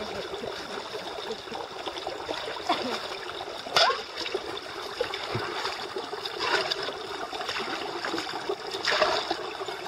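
Water of a small creek trickling steadily while it is scooped up with a metal mug and poured into a large metal pot, with louder splashes about four, six and a half, and nine seconds in.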